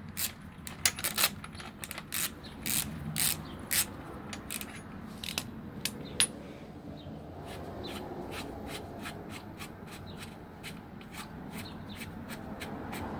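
Metallic clicking and clinking as a Shimano-style threaded bottom bracket cup is unscrewed with a bottom bracket socket and ratchet. The clinks are irregular at first, then become a steadier run of clicks about three a second in the second half.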